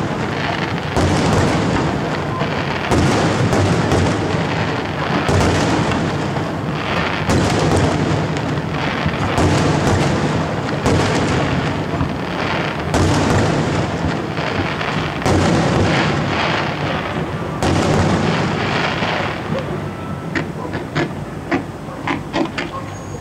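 Aerial fireworks bursting in a steady barrage, a deep boom about every two seconds, each with a long rolling tail. Near the end the booms thin out into a run of sharp crackling pops.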